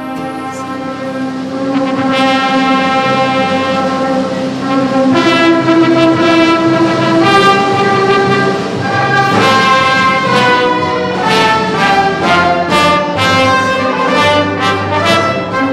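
Orchestral music led by brass, playing slow, held notes that swell about two seconds in and move more quickly in the second half.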